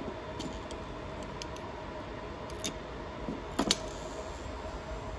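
Light metallic clicks of a screwdriver tester touching and snapping against an energized solenoid valve coil that pulls it in magnetically, the loudest a double click about three and a half seconds in, over a faint steady hum.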